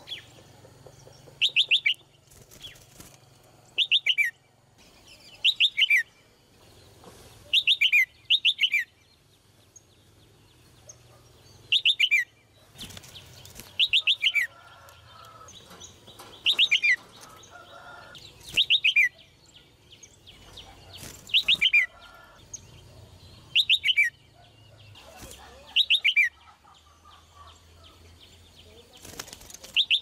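Red-whiskered bulbul calling: about a dozen short bursts of quick falling notes, one every two seconds or so, with a few brief wing flutters in between.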